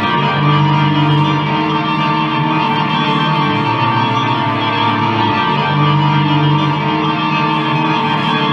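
Live experimental music: a dense drone of layered held tones with effects, likely guitar-based. A strong low note drops out and comes back after a few seconds.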